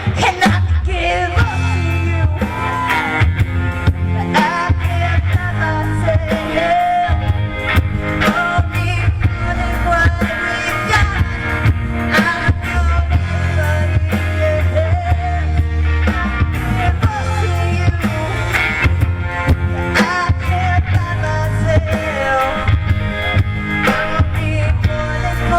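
Live rock band playing: a singer's voice over guitar, a heavy bass line and steady drum hits.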